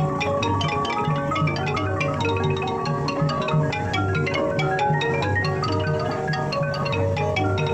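Music led by a xylophone-like mallet instrument playing rapid runs of short notes over a low, repeating bass pulse.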